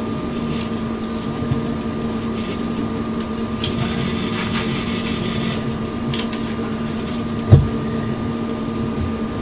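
Steady electrical hum with faint paper rustling and handling noise as loose sheets are shuffled, and one short low thump about three-quarters of the way through.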